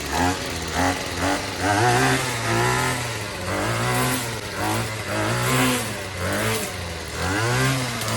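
Small two-stroke string trimmer engine running and being revved, its pitch rising and dropping back over and over, about once a second.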